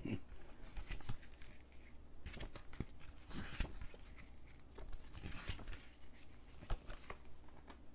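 Paper rustling as the pages of a printed booklet are handled and turned, with scattered light crinkles and taps.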